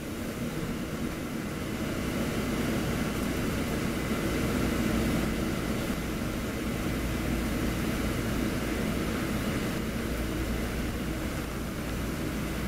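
Wright Pulsar Gemini-bodied VDL DB300 double-decker bus on the move, heard from the upper deck: a steady engine drone and road rumble that grows louder over the first couple of seconds and then holds.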